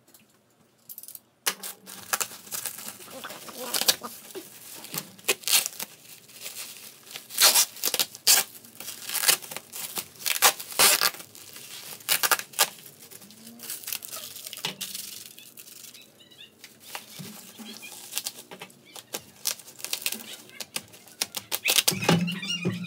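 Irregular clicks, taps and scrapes of an Asus Transformer Pro T304U 2-in-1 laptop being taken apart by hand. A short low pitched sound comes near the end.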